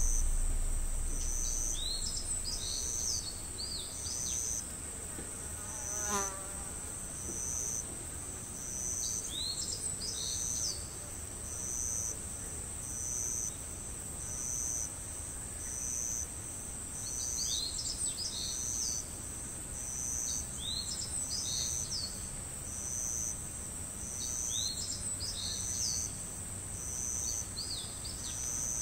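Insects in the forest keeping up a steady high-pitched buzz, with a second high note pulsing on and off roughly once a second, and birds chirping in short clusters of falling notes. One brief pitched call stands out about six seconds in.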